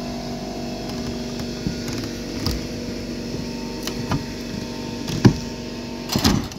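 A long-handled pry bar levering a wooden fascia board off the rafter tails: scattered knocks and creaks of wood and nails giving way, the sharpest about five seconds in and a quick cluster near the end, over a steady low hum.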